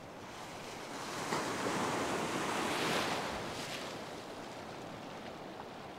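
Ocean surf: a wave breaks and washes in around the legs, a hiss of white water that swells about a second in, is loudest between two and three seconds, then fades away.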